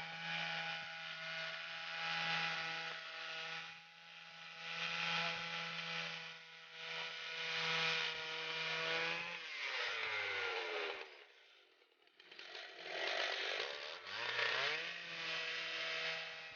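Chainsaw power head driving a swing-blade sawmill, running at a steady pitch. About ten seconds in its revs fall away until the sound almost stops, then climb back up to the same steady running.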